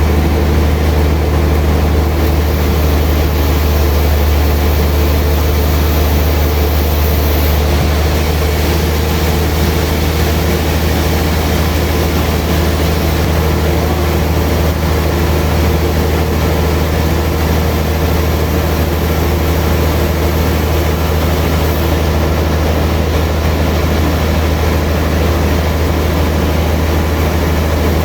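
Sawmill machinery running steadily with a deep, constant hum.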